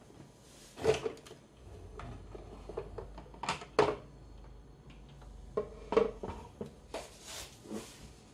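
Plastic clicks and knocks of a JUKI HZL-EX7 sewing machine's detachable accessory table being unclipped and slid off the free arm and set down. There is a sharp knock about a second in, two close together near the middle, one more a little later, and a few lighter taps near the end.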